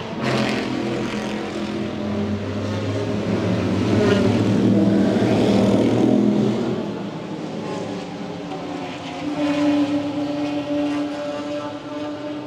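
Racing car engine sound. It grows loudest about halfway through, eases off, and swells briefly again near the end.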